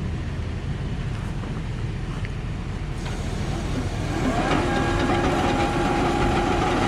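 Bulk feed truck's engine running steadily. About four seconds in, a whine rises in pitch and then holds steady, and the sound gets louder, as the truck's feed-unloading gear starts up to fill the silo.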